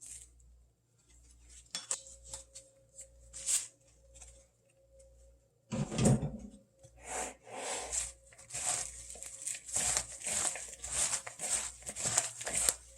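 Kitchen handling sounds of food preparation: a few scattered light clicks and knocks, then from about six seconds in a busy run of irregular clattering and rustling strokes.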